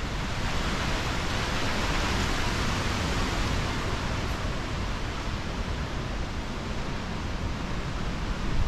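Steady rushing noise, swelling slightly a second or two in and then holding level.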